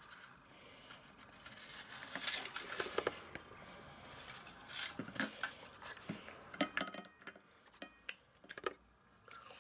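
Hands breaking open the chocolate shell of a Kinder Surprise egg and handling the plastic toy capsule inside: a run of small crackles and clicks, sharper and more frequent in the second half.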